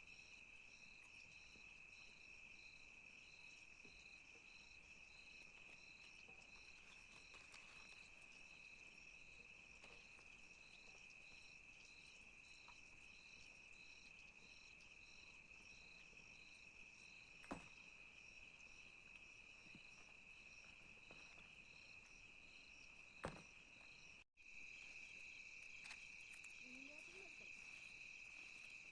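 Faint, steady insect chirring, a high continuous tone with a quick pulsing beat over it. Two sharp clicks sound in the second half. The sound drops out for an instant about three-quarters of the way through and comes back a little louder.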